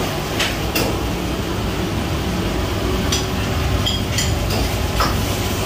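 Commercial restaurant kitchen working: a steady, loud rumbling noise with a few sharp clinks of utensils and dishes scattered through it.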